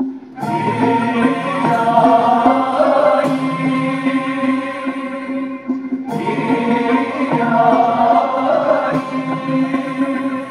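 Mevlevi sema music: a group of voices chanting a slow hymn in two long phrases, the second beginning about six seconds in.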